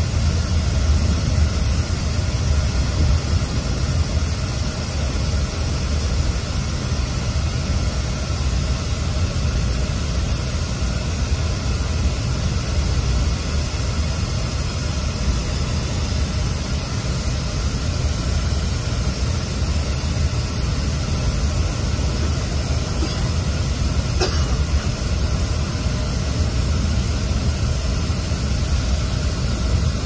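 Cabin noise inside a Scania OmniExpress coach cruising at highway speed: a steady low rumble of engine and road under the even hiss of the coach's loud air conditioning.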